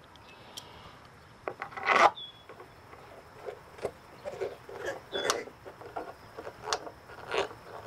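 Hand screwdriver turning a screw into a plastic tractor tail light lens: irregular clicks and scrapes, loudest about two seconds in.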